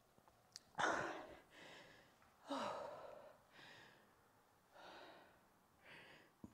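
A woman breathing hard with sighing breaths, catching her breath after a hard exercise set: about five heavy breaths, the loudest about a second in.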